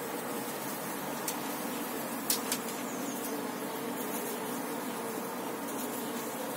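Honeybees on a hive frame buzzing steadily in a low drone, with a few light clicks a little over two seconds in.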